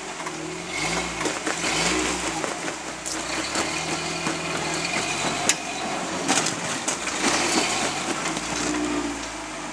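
Pickup truck engine revving in repeated surges as the truck crawls up over a rock ledge, with crunching and knocking of tires and underbody on rock.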